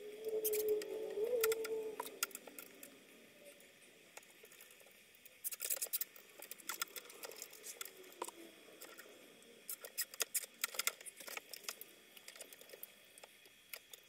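Nylon zip ties being pulled tight around a bicycle's gear cable and frame: quick runs of light ratcheting clicks and ticks, with pauses between.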